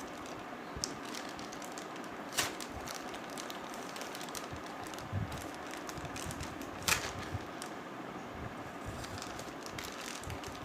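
Scattered clicks and light rustling of a delivery parcel being handled and opened by hand, with two sharper snaps about two and a half and seven seconds in, over a steady background hiss.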